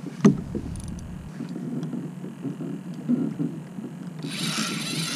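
Low, uneven rumble of wind and water on the kayak out on open sea, with one sharp knock about a quarter second in. A loud, steady hiss comes in about a second before the end.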